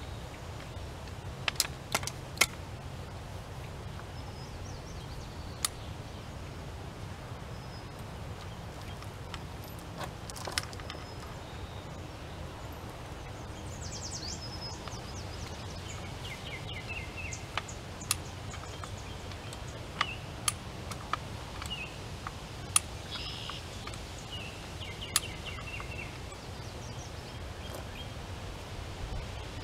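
Hand-worked jack-style fence post puller clicking and clanking at irregular intervals as it is pumped to lift a wooden fence post. Birds chirp in the background over a steady low outdoor rumble.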